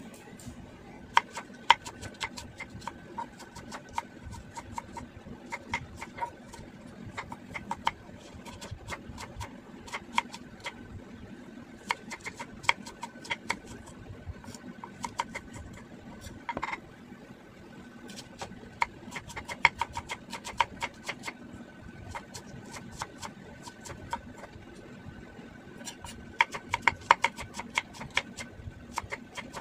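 Kitchen work: quick, sharp taps and clicks of utensils in bursts every few seconds, over a faint steady high whine.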